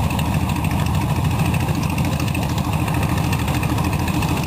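Red Fokker triplane's engine running steadily as the aircraft taxis on the ground, a loud, even throbbing of engine and propeller.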